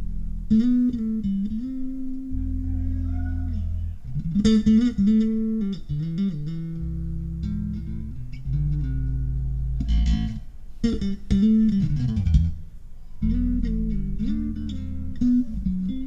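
Solo electric bass music played back through a Polk Audio Signature S20 loudspeaker and picked up by a microphone: plucked bass notes, with deep sustained low notes under higher melodic phrases.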